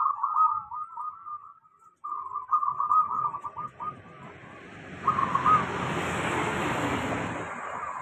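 Caged zebra doves (perkutut) cooing in quick, broken phrases, in two runs over the first few seconds and once more briefly about five seconds in. Over the second half a broad rushing noise swells and then fades.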